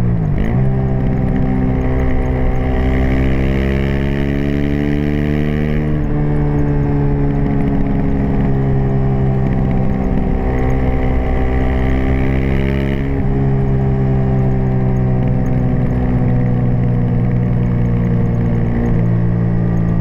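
Aprilia SX 125 single-cylinder four-stroke running through an Arrow racing header and Arrow Thunder slip-on exhaust while riding. Revs dip briefly just after the start, as at a gear change, then climb steadily for several seconds under acceleration. After that they hold and ease slowly down, with small shifts twice more.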